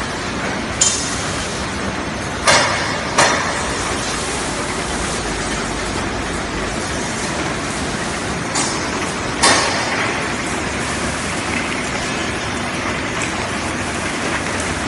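Paper bag making machine running: a steady mechanical rush with a few sharp clacks in the first ten seconds.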